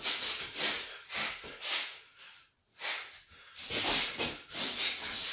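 A boxer's short, sharp exhalations while shadowboxing hooks with ducks, one breath-out with each punch. There are about six in quick succession, with a brief pause near the middle.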